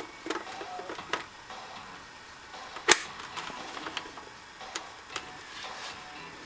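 A few scattered clicks and light knocks from a cordless saw and its battery adapter being handled, with one sharp, louder click about three seconds in.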